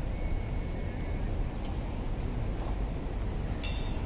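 A steady low rumble of outdoor background noise, with a bird chirping briefly near the end.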